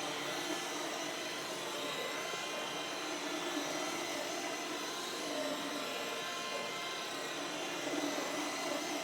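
Vacuum cleaner running steadily, sucking up loose feathers.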